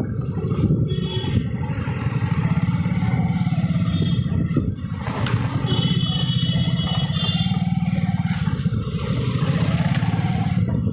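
Motorcycle engine running steadily at riding speed, heard from the bike itself, with wind and road noise. Short high tones sound briefly about a second in and again around six to seven seconds in.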